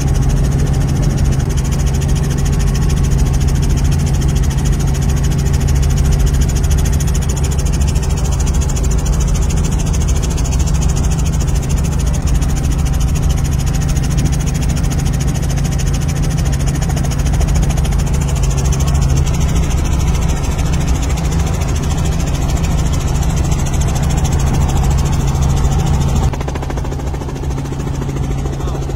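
Helicopter engine and rotor noise heard inside the cabin: a loud, steady low drone that steps down slightly in level near the end.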